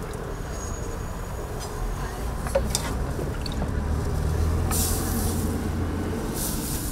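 Street traffic: a low vehicle rumble that swells and eases, with two short hisses like a bus's air brakes.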